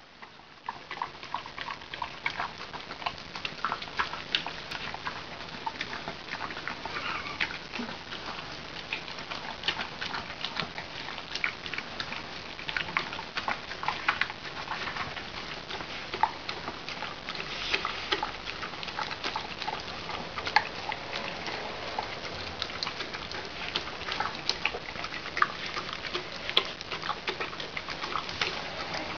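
A dog and a cat eating wet meat food together from one stainless steel bowl: continuous irregular wet smacking and chewing with sharp clicks, starting about a second in.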